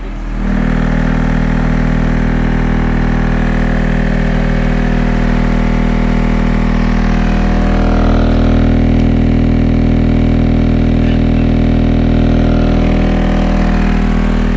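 Car-audio subwoofers in a Toyota Tacoma pickup playing very loud, steady bass on a loudness (SPL) pass, kicking in suddenly about half a second in and holding, swelling slightly past the middle.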